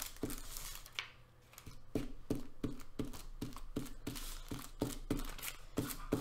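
Glue stick rubbed back and forth over paper lying on tissue paper, a quick rhythmic run of scrubbing strokes at about three a second, with a short pause about a second in.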